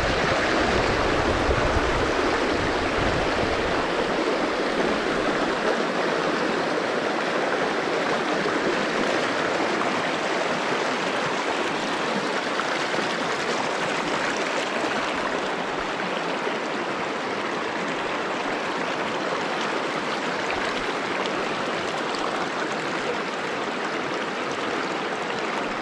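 Shallow river riffle rushing steadily over rocks and cobbles, with a low rumble under it for the first two or three seconds.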